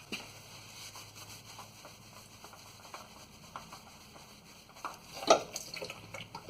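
Light clicks and scrapes of an oil filter being spun off and handled under a Chevy Silverado's 5.3 V8, with one louder clunk a little after five seconds in.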